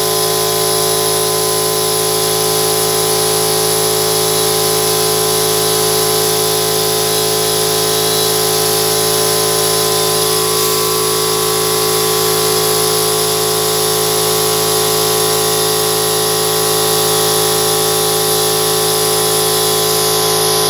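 Air compressor running steadily: a loud, unchanging machine drone with several steady hum tones, supplying air to an electrostatic powder-coating spray gun.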